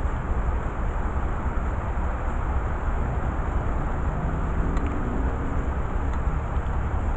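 Steady low rumble with a hiss over it, outdoor background noise of the kind that distant traffic or machinery makes. Faint engine-like hums come and go in the middle.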